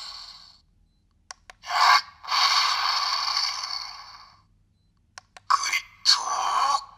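Gridman Accepter toy: small button clicks, each followed by hissing, noisy electronic sound effects from its small speaker. There are two runs of effects, the longer lasting about two seconds.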